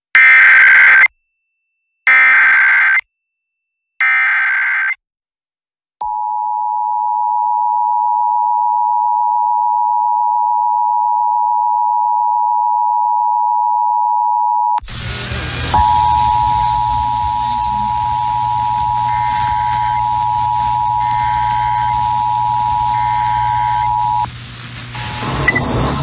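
Emergency Alert System tones: the digital SAME header sent three times as short warbling data bursts about a second apart, then the steady two-tone EAS attention signal (853 and 960 Hz). About fifteen seconds in, hiss and a low hum join and the tone breaks briefly before resuming, and it stops a couple of seconds before the end.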